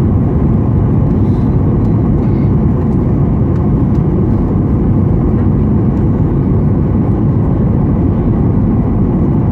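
Steady cabin noise of a Boeing 737-800 on final approach: the CFM56 engines and rushing airflow, heard from a window seat over the wing.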